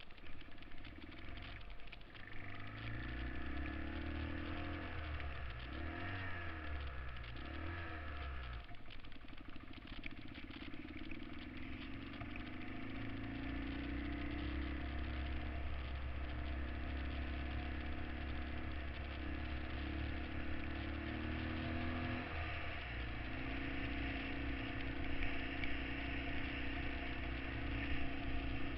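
Honda XL trail bike's single-cylinder four-stroke engine riding along, revving up and down through the gears for the first several seconds, then holding a steady cruise with one shift about two-thirds of the way through.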